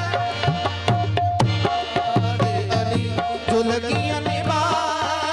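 Qawwali music: tabla drumming a quick, steady beat under a singing voice.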